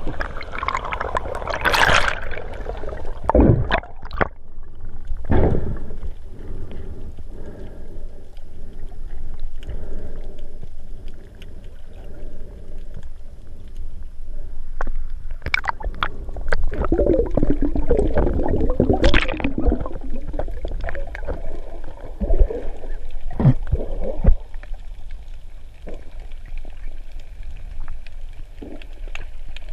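Underwater sound heard through a GoPro's waterproof housing: a steady low rumble of moving water with scattered crackles and knocks, and a stretch of bubbling gurgles a little past the middle.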